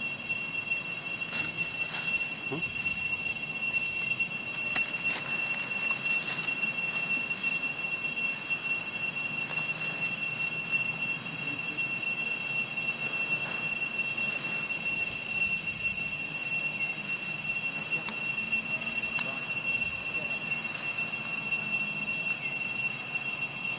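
Steady, high-pitched drone of an insect chorus, holding one unbroken pitch with an overtone above it.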